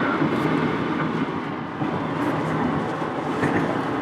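Steady road noise inside a moving car's cabin: tyres running on a wet road and the hum of the car.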